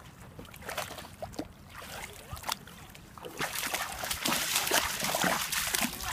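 A puppy splashing in shallow water, biting at small waves lapping the shore. Scattered small splashes at first; the splashing grows louder and busier about three seconds in as it steps into the water.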